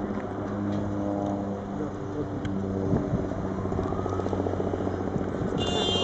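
Motor vehicle engine running with a steady low hum, with a brief high tone near the end.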